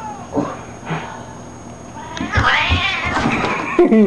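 A cat caterwauling: a few short calls, then a long, loud, wavering yowl from about two seconds in. It is a defensive warning at a dog that is pestering it.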